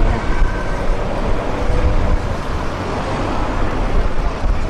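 Police vehicles and road traffic driving past, a dense wash of road noise over a heavy low rumble.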